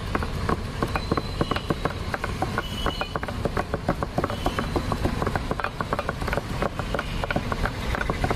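Rapid, continuous chopping: four long flat chopping blades, two in each man's hands, strike in quick alternation through a heap of raw jackfruit pieces onto a round wooden block, giving a steady stream of sharp knocks, several a second.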